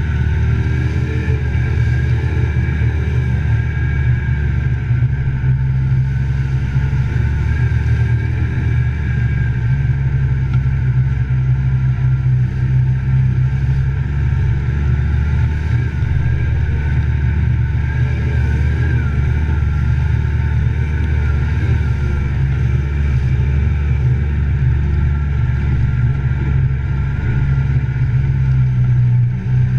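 Side-by-side utility vehicle's engine running steadily under way, heard from the seat, with a steady high whine over the engine note.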